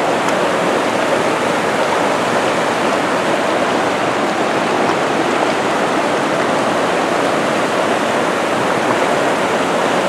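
Water of a waterfall rushing steadily, an even noise that neither rises nor falls.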